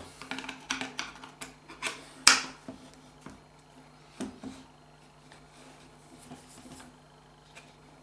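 Steel screwdriver blades clicking and scraping against the plastic housing of a Mercedes W202 gear selector assembly as it is pried apart. The sharpest click comes about two seconds in, and the clicks thin out to faint ticks after about four seconds, over a faint steady hum.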